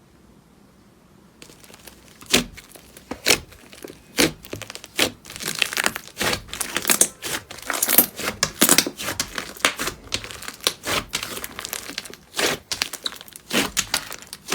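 Slime being squeezed and pressed, giving off a fast, irregular run of crackles and pops that starts about a second and a half in and is thickest in the middle.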